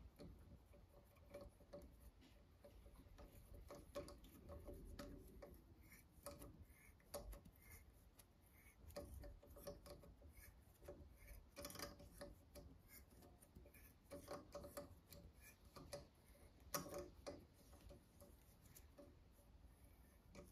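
Faint, irregular metallic clicks and ticks of a hand tap being turned in a broken exhaust-stud hole, cutting an oversized thread for a thread insert.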